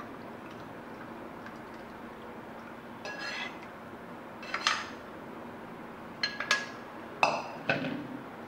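Steel spoon scraping and clinking against a non-stick pan as the last of the strained spinach soup is scraped out into a plastic strainer. A few separate groups of short metallic clinks with brief ringing come in the second half.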